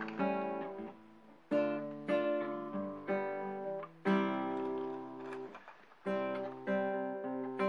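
Background music: acoustic guitar chords struck one after another, each left to ring and fade before the next.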